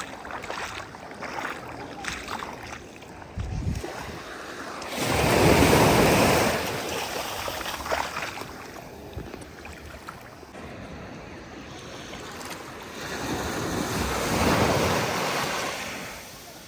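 Sea waves breaking and washing in. Two bigger waves surge in, one about five seconds in and another near the end.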